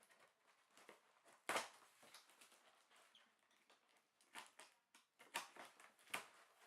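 Faint, scattered rustles and light knocks of packaging being handled during an unboxing, the loudest about a second and a half in, with a few more near the end.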